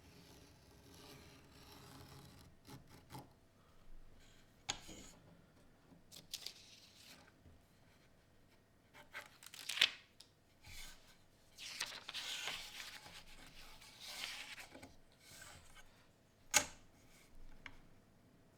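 A sharp knife drawn along a ruler, cutting through printed paper sheets, with paper rustling in between. A few sharp taps, the loudest near the middle and near the end, break up longer scratchy cutting strokes.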